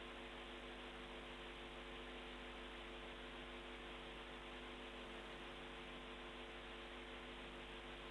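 Faint steady hiss with a constant electrical hum, unchanging throughout, and no distinct sound events: the noise floor of the broadcast's audio.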